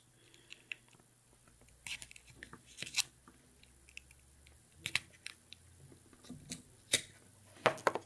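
Faint, scattered sharp clicks and scratchy ticks of a blade cutting X-shaped slits through carbon fiber vinyl wrap over the holes of a plastic button housing.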